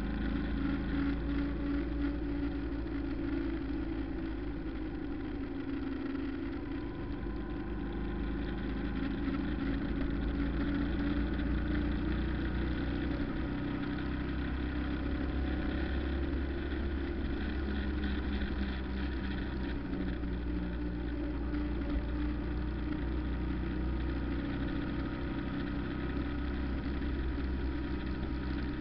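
A road vehicle's engine running steadily while driving, heard from inside the vehicle, with a constant low rumble of road and tyre noise beneath it.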